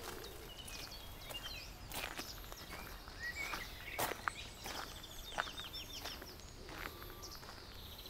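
Footsteps on a gravel path, a few sharp steps standing out, with several birds singing: scattered chirps and a quick trill of repeated notes about halfway through.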